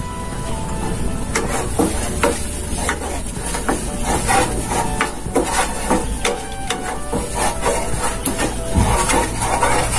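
Spices for a curry masala sizzling in a hot pan while a spoon stirs them, with many irregular clicks of the spoon against the pan.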